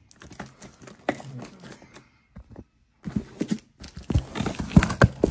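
Scissors cutting into a cardboard shipping box, with the cardboard scraping, rustling and knocking as the box is handled. There is a short pause about halfway, then busier, louder scraping and knocks near the end.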